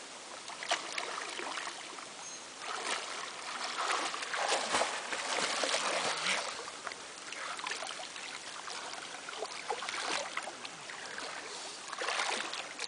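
Water splashing and churning as a person dunks and thrashes about chest-deep in a river, loudest from about four to six and a half seconds in, with another burst of splashing near the end.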